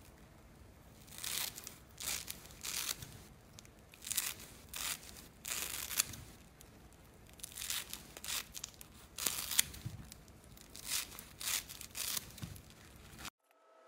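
Scissors cutting through a thick block of coarse foam sponge, one short snip after another at about one a second. The sound stops abruptly near the end.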